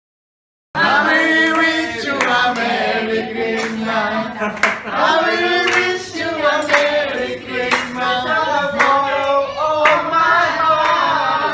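A group of people singing together, with hand claps.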